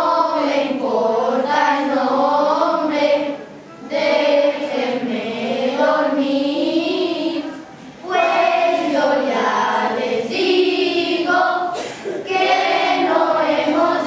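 Children's choir singing, in sung phrases broken by short pauses for breath about every four seconds.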